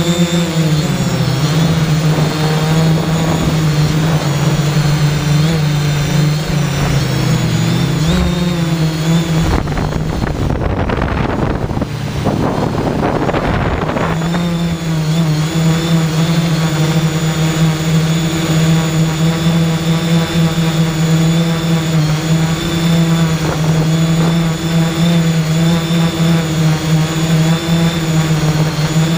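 The motors and propellers of a 3DR X8 coaxial octocopter hum steadily, heard through the camera riding on the drone, with the pitch shifting a little as the motor speeds change. About ten seconds in, for about four seconds, the steady hum gives way to a rougher, noisier rush, then settles back.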